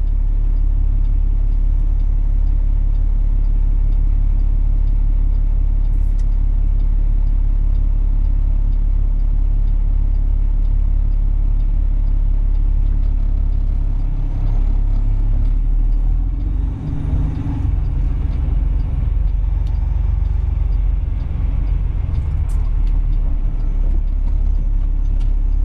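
Semi truck's diesel engine idling with a steady low rumble, heard from inside the cab. About two-thirds of the way through the rumble shifts and wavers as the truck gets under way.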